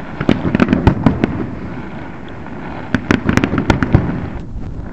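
Fireworks exploding: a rapid string of sharp cracks and bangs over a continuous rumble, with a dense cluster in the first second and another about three seconds in.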